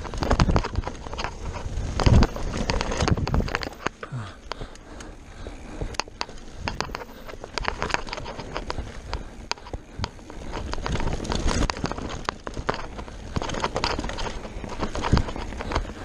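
Mountain bike descending a dry dirt trail at speed: tyres rushing and crunching over dirt, with a steady run of irregular knocks and rattles from the bike over bumps and roots, and a few heavier thumps near the start and about two seconds in.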